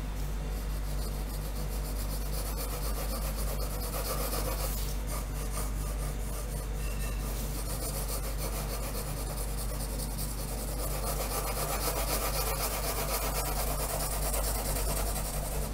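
Pencil lead scratching on paper in many quick shading strokes, growing heavier about two-thirds of the way through, over a steady low hum.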